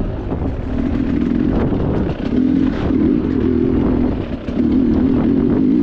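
Sherco enduro dirt bike engine running on and off the throttle on tight singletrack, its pitch rising and falling. A few short knocks come from the bike over the trail.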